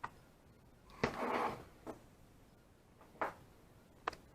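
Bike parts and their packaging being handled: a few short clicks and knocks, with a brief rustle about a second in.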